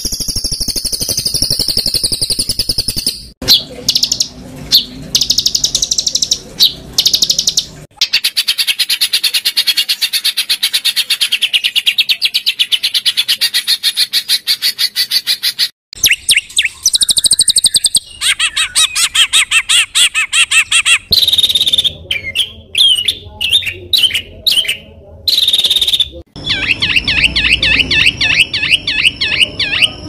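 Songbird tutor recording of harsh, rapid-fire calls, spliced so the pattern changes abruptly every few seconds: fast dense trills, sharp clicks and quick repeated chirps, used to teach competition songbirds new song material.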